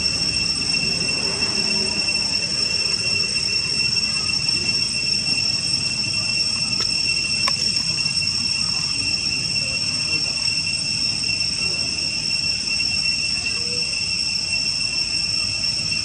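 Steady high-pitched drone of insects, one unbroken tone with a fainter higher tone above it, over a low rumbling background noise.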